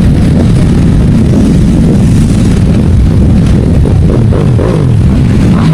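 Motorcycle engine running, with a loud, steady low rumble.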